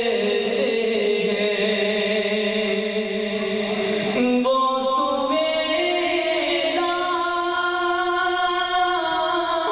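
A man singing a naat through a microphone in long, drawn-out held notes that move to a new pitch a few times.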